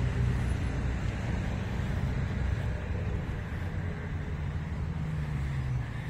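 Steady hum of road traffic, with a low engine drone that drops away a little near the end.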